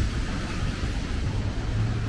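Steady city street noise: a low rumble of traffic with an even hiss above it.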